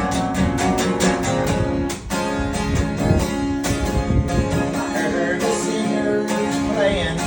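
Acoustic guitar strumming chords in a steady rhythm: an instrumental break between verses of a folk-rock song.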